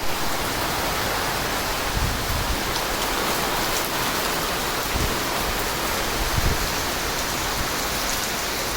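Steady monsoon rain falling in a dense, even hiss, with a few brief low thumps about two, five and six and a half seconds in.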